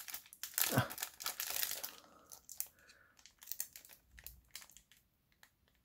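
Clear plastic wrapper on a trading-card pack crinkling as fingers pick and pull at it, trying to tear it open. Dense crackling for about two seconds, then scattered crinkles that thin out near the end.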